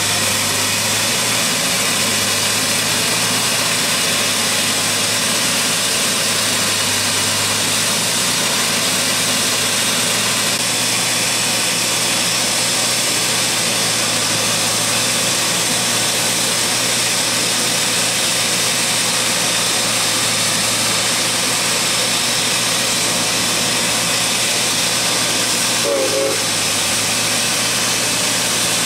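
Engine of a rail maintenance machine running steadily at idle, a low hum under a constant hiss. Near the end a brief high squeak.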